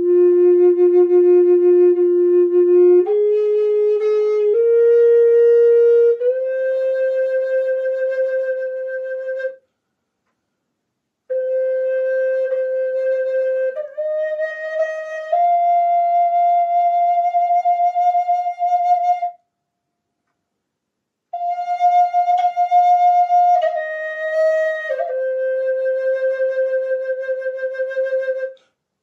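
Native American style flute playing a slow, simple melody of long held notes in three phrases, each separated by a pause of a second or two. The first phrase climbs step by step, the second climbs higher, and the third steps back down.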